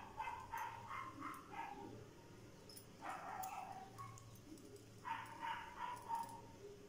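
An animal's faint yelping calls in three short bursts: near the start, about three seconds in and about five seconds in.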